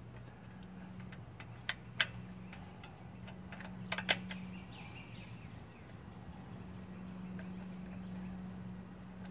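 Sharp metal clinks of bolts and a hand tool against a go-kart's engine mounting plate as the engine is bolted down: two clinks about two seconds in and a quick cluster about four seconds in. A steady low hum and a few bird chirps sit underneath.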